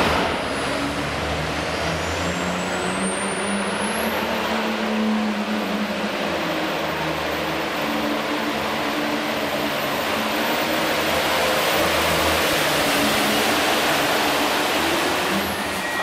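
Turbocharged International diesel pulling tractor running hard at full load while pulling the weight sled. Its very high turbo whistle climbs over the first few seconds, holds, and drops off just before the end.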